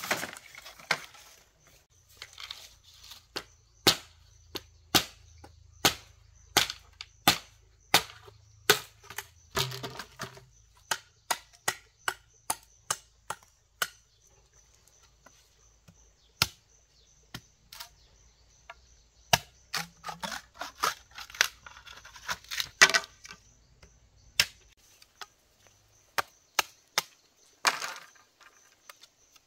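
Machete chopping bamboo: a long run of sharp, separate chops, often one or two a second, with a sparser spell in the middle.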